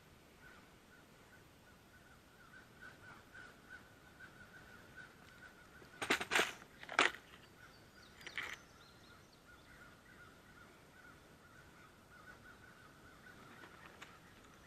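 Crows cawing: a quick cluster of caws about six to seven seconds in and one more about two seconds later. Under them runs a faint, steady, high-pitched pulsing hum.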